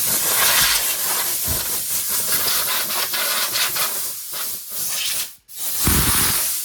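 Loud, steady hiss of a gas jet, like an aerosol spray or compressed-air blowgun, cutting out briefly about five and a half seconds in and then starting again.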